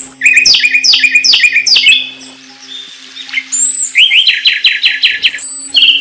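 A songbird singing: a phrase of four loud, repeated downward-sweeping notes, a short pause, then a faster run of quick sweeping notes about four seconds in and a thin high whistle near the end. A faint steady low hum sits underneath.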